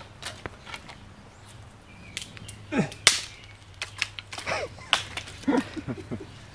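Hatchet striking and splitting kindling wood: a few separate sharp cracks, the loudest about three seconds in, with brief vocal sounds between them.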